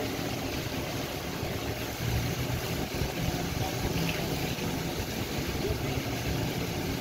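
A vehicle engine running steadily at low speed, a low even hum.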